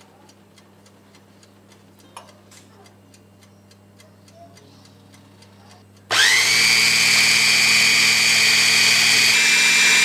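Electric Mitochiba food chopper switched on about six seconds in: its motor spins up with a rising whine, then runs loud and steady, blending hot cheese sauce smooth. Before that it is quiet except for a few faint knocks.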